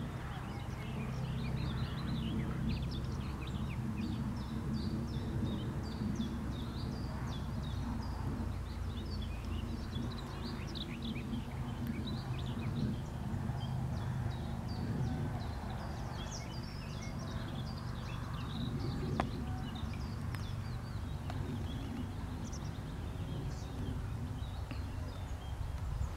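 Many small birds chirping and twittering, short overlapping calls scattered throughout, over a steady low rumble.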